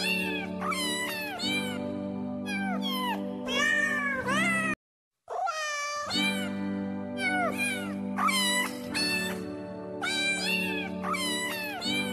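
Cat meows one after another, rising and falling in pitch, laid over background music with sustained notes. The whole track drops out for about half a second near the middle, then carries on.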